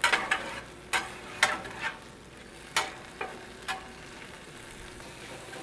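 Metal spatula scraping and tapping against a roasting pan on a gas grill, stirring vegetables and tomato paste as the sherry deglaze reduces, with a sizzle underneath. There are about seven scrapes and taps at uneven intervals.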